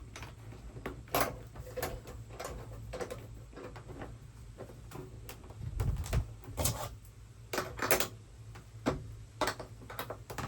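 Irregular clicks and knocks of small metal hardware being handled as a bolt, fender washers and a nut are fitted by hand to a truck-bed topper anchor, over a low steady hum.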